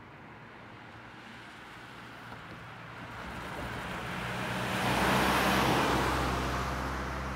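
A road vehicle drives past, its engine and tyre noise swelling to a peak about five seconds in and then starting to fade, with a low engine hum underneath.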